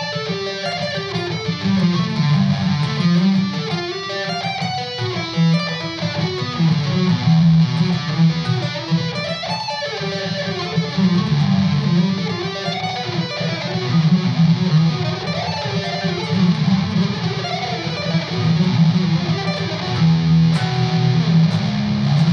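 Ibanez electric guitar playing a fast economy-picked add9 arpeggio lick: single notes picked in rapid succession, the same pattern descending and then ascending across the neck in two shapes a step and a half apart.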